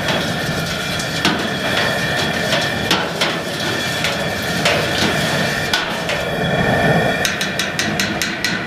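Long metal spoon knocking and scraping against the sides of a stainless steel brew kettle as wort is stirred, over the steady rush of a propane burner. Near the end the knocks come fast, several a second.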